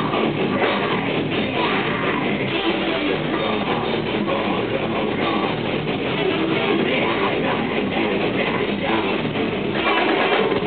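Deathcore band playing live: heavy electric guitars and drum kit with vocals over them, one continuous stretch of a song.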